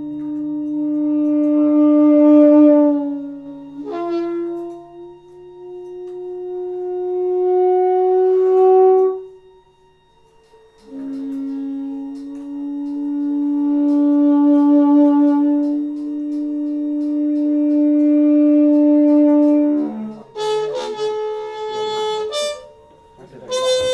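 Background music: slow, long held notes on a wind instrument over a low sustained drone, with quicker, brighter notes near the end.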